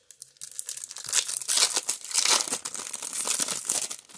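A foil-wrapped 1994 Topps Stadium Club baseball card pack being torn open, its wrapper crinkling and crackling. The crackle starts about half a second in and keeps up densely until near the end.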